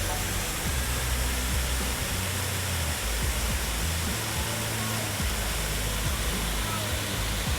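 Steady rush of a waterfall, with background music's low notes under it.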